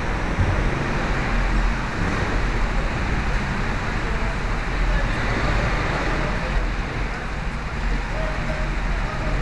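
Four-stroke rental go-kart engines running in an indoor hall, with a steady low rumble; the onboard kart comes to a stop and several karts sit idling close together.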